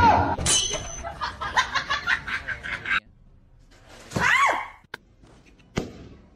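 A person laughing in quick pulsing bursts for about three seconds, then after a pause a short rising-and-falling cry, and a single sharp click near the end.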